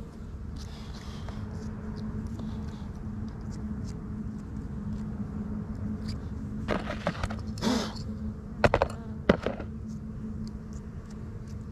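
Dwarf honey bees (ong ruồi) buzzing in a steady hum as they fly around their disturbed comb. Several sharp clicks come in a cluster about two-thirds of the way in, the loudest two a little over half a second apart.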